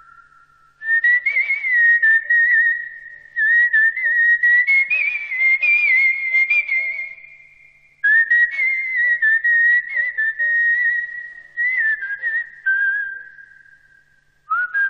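A whistled tune: long, slightly wavering notes in three or four unhurried phrases, each fading out before the next begins, with faint clicks under them.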